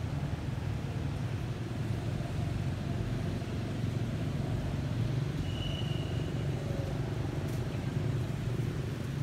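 Steady low background rumble, with a short high tone about five and a half seconds in.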